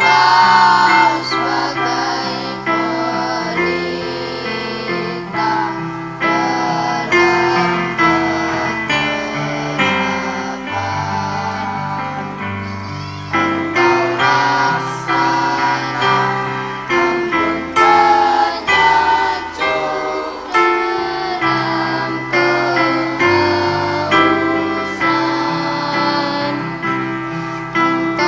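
A choir of schoolgirls singing a slow song in unison over electric keyboard accompaniment, with held bass notes under the melody.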